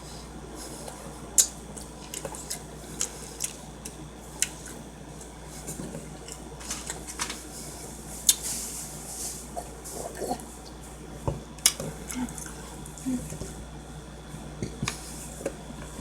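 Close-miked eating sounds of sushi being chewed: wet mouth smacks and many scattered sharp clicks, with a brief hissy rustle about eight seconds in.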